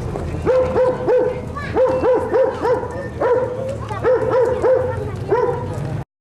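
A dog barking repeatedly in quick runs of two to four barks, over a low steady hum. The sound cuts off suddenly near the end.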